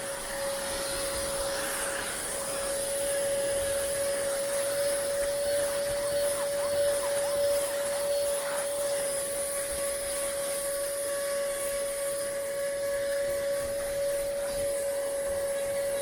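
Small Hoover vacuum cleaner running steadily, with a constant whine over a hiss of suction, vacuuming dry hair out of upholstered furniture.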